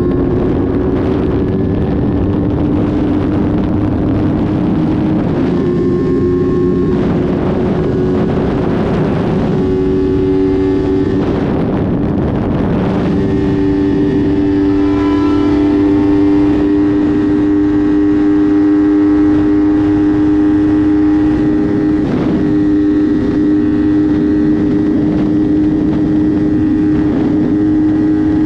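Motorcycle engine running steadily at a constant speed, its pitch stepping up slightly a few times, with gusty wind noise on the microphone.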